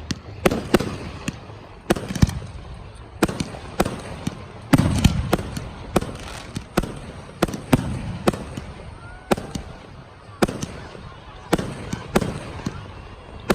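Fireworks display: aerial shells bursting in a rapid, irregular string of sharp bangs, often one to two a second, each followed by a rolling rumble. The heaviest cluster of bursts comes about five seconds in.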